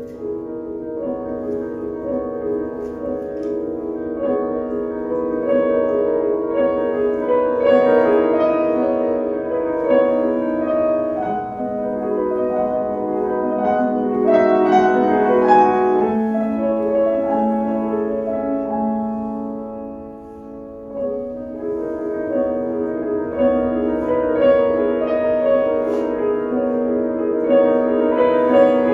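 Solo piano playing slow, sustained chords and melody lines, easing off briefly about two-thirds of the way through before building again.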